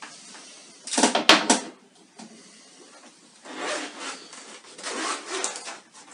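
A wooden desk cabinet being opened and a drone case pulled out, with a loud clatter and one sharp knock about a second in. Then two rasping, rustling passes as the drone case is handled and opened.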